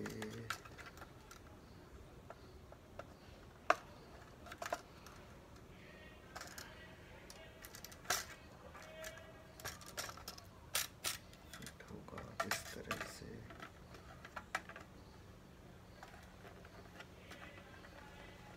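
Hard plastic clicks and taps of a bubble visor being handled and fitted onto an open-face helmet's studs. The clicks come irregularly, the sharpest about four and eight seconds in, with a cluster around eleven to thirteen seconds.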